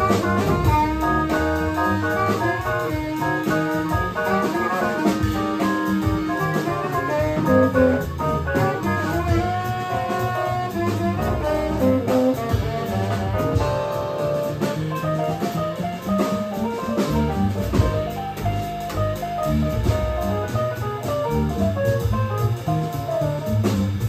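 Live small-group jazz: a tenor saxophone playing a melodic line over upright bass, keyboard and drums.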